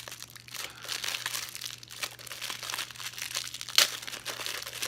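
Plastic packaging being handled and opened to unwrap a speed cube: irregular rustling, with one sharp click a little under four seconds in.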